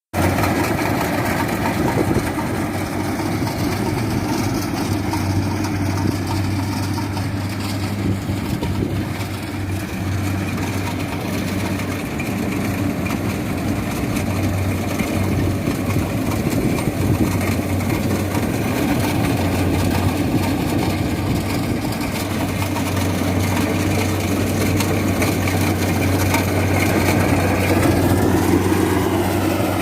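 Rice combine harvester running steadily, its engine humming at a constant pitch under the clatter of the threshing machinery.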